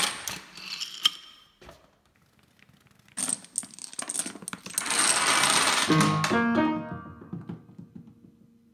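A homemade Rube Goldberg chain reaction running: small pieces rattling and clattering, with a sharp click about a second in and a long loud stretch of clattering from about three to six seconds in. Then a few upright piano notes sound in quick succession and one low note rings on faintly.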